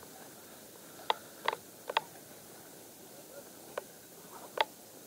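A few sharp, irregular slaps and knocks as a just-landed crucian carp flaps and is handled while it is taken off the hook.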